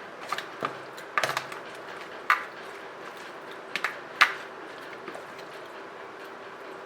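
A spoon tapping and scraping against a dish while ginger garlic paste is added to raw chicken for a marinade: a handful of sharp clicks over the first four seconds, over a faint steady hum.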